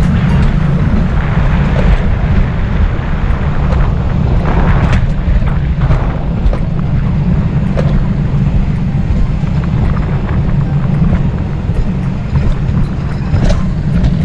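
Loud, steady low rumble of a bobsled car running down its rail track through the forest, with wind buffeting the sled-mounted camera's microphone.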